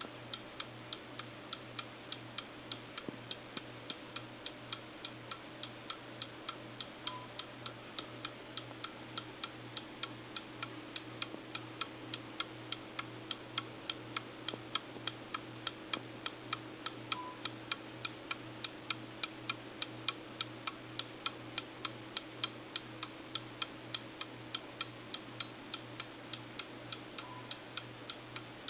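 Antique Columbia Time cuckoo clock ticking, a fast, even tick from its pendulum escapement, over a faint steady low hum.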